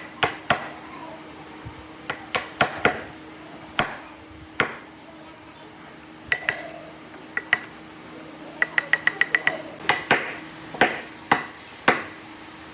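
Sharp metallic knocks and clinks of hand tools at work, spaced irregularly, with a quick run of about eight light taps partway through, over a steady low hum.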